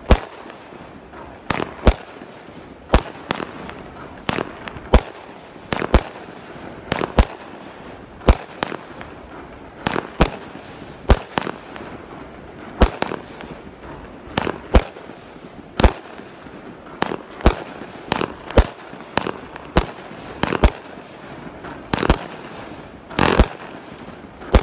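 '3 Little Pigs' consumer fireworks cake firing aerial shots: a long run of sharp bangs, roughly one a second at an uneven pace, several coming in quick pairs.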